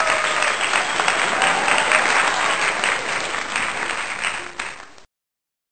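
A crowd clapping: dense, steady applause that cuts off abruptly about five seconds in.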